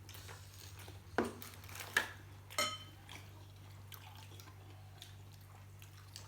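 Cutlery and dishes clinking during a meal: three sharp knocks about a second apart, the last with a brief metallic ring.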